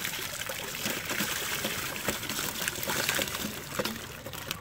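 Water and live bluegill poured from a plastic bucket into a wire fish basket, splashing onto the lake surface below; the pour tapers off near the end.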